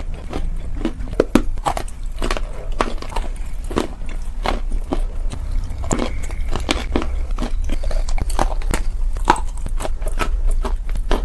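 Close-miked biting and chewing of crunchy dried clay: an irregular run of sharp, crackling crunches, several a second, over a low steady hum.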